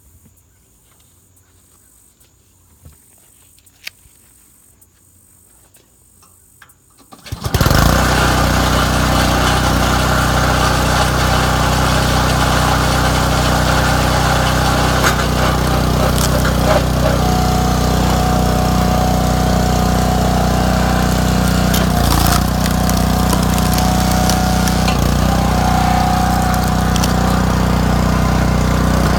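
Quiet at first with a few faint clicks, then about seven seconds in a log splitter's engine starts abruptly and runs steadily at a constant speed.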